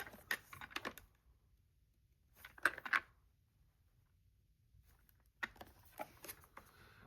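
Packaging of a new Bluetooth speaker being handled and opened: three short spells of rustling and clicking, with quiet gaps between them.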